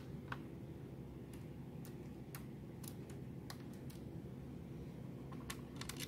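Light, irregular clicks and ticks of a small precision screwdriver working the screws out of a laptop motherboard, metal tip against the screw heads.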